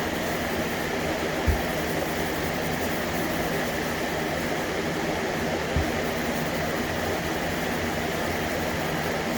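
Steady machine hum with an airy whoosh, broken by a soft low thump about a second and a half in, another near six seconds in, and a louder one at the end.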